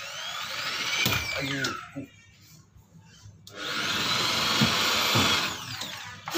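Handheld power drill running in two bursts of about two seconds each, with a short pause between, its motor pitch rising and falling, while drilling holes through a plastic over-fender flare.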